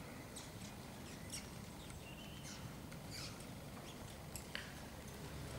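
A horse trotting on a sand arena surface: soft, irregular hoofbeats and short high clicks several times a second over a low steady rumble.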